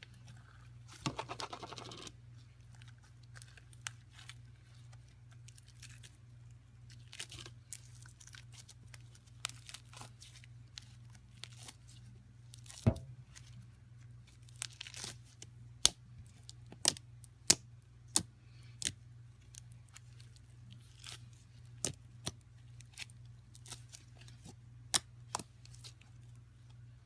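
Slime being handled: a crackling stretch about a second in, then scattered sharp pops and clicks, one of the loudest about halfway through, over a faint steady hum.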